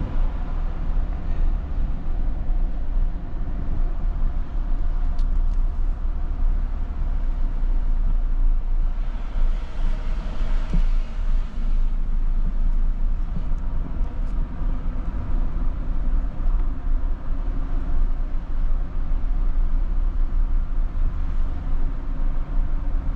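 Car driving along a park road, heard from inside the cabin: a steady low engine and road rumble, with a brief rise in hiss about ten seconds in.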